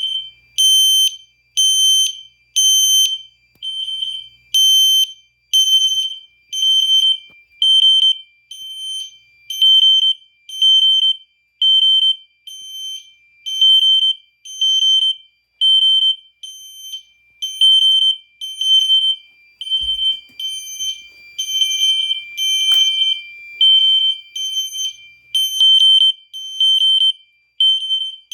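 Two fire alarm horn strobes, a System Sensor SpectrAlert Classic and a System Sensor L-Series, sounding together in alarm at about 3000 Hz in code 3: repeated short, shrill blasts, one horn interrupted and the other a regular horn tone. The alarm was set off by a smoke detector.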